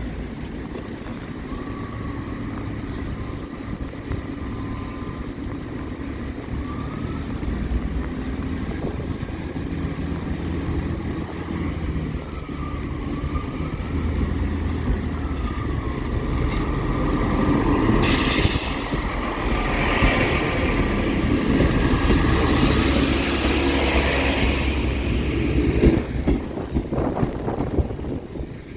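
A train approaches and passes over the level crossing. A low, steady engine drone builds up, then wheel and rail noise grows loud from about 18 seconds in and fades away near the end.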